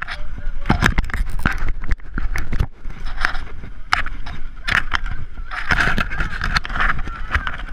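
Irregular scrapes and knocks of gloved hands and bodies crawling through wet mud and dirt.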